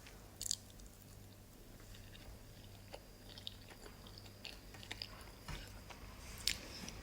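A person chewing a mouthful of oatmeal pancake and scrambled egg, with faint wet mouth clicks now and then.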